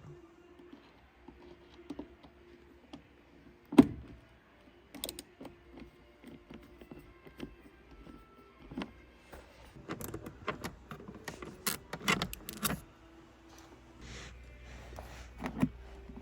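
Scattered clicks, knocks and rattles of car interior trim and hardware being handled and worked loose, with one sharp knock about four seconds in and a quick run of clicks between about ten and thirteen seconds in. A faint steady hum sits underneath.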